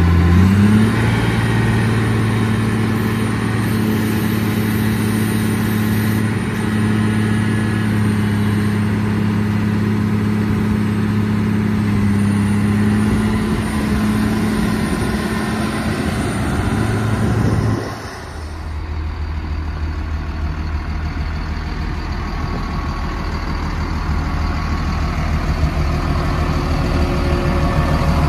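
Caterpillar 938G wheel loader's diesel engine revving up in the first second and running at raised revs with a high whine on top, then dropping back to a steady idle about two-thirds of the way through.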